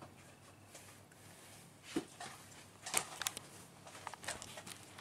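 Quiet room tone with a faint hum, then a few light clicks and taps from a smartphone being handled, the clearest about two and three seconds in.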